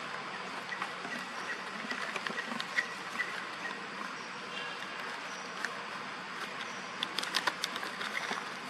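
Steady high hiss of outdoor background noise with scattered small clicks and rustles, a quick cluster of them about seven seconds in.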